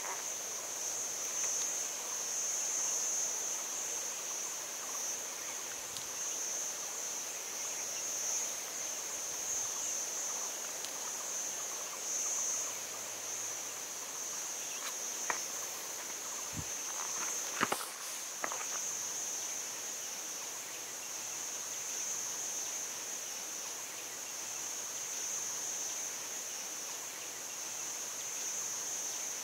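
Steady high-pitched chorus of insects, unbroken throughout, with a few short clicks and scuffs about halfway through.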